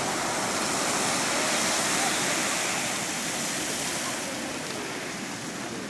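Strokkur geyser erupting: a steady rush of water and steam as the column falls back, easing off after about four seconds.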